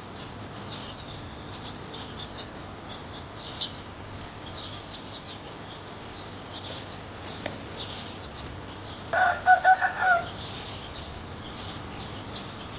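Newly hatched day-old chicks peeping, many short high cheeps over one another. About nine seconds in, a louder, lower call in four quick pulses stands out above them.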